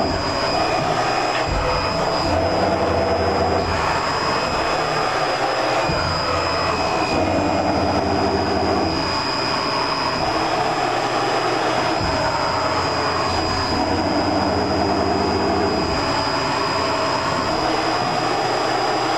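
Fryer MC60 vertical machining center running: a steady mechanical hum with a constant high-pitched whine as its table traverses under the spindle.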